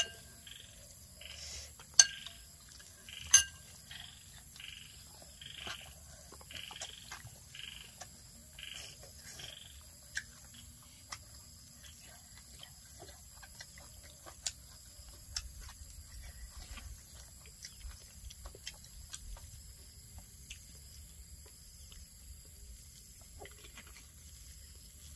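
A frog calling in a steady series, about three short calls every two seconds, stopping about ten seconds in. Two sharp clinks of a spoon on a plate stand out early on, among small clicks and taps of eating from plates.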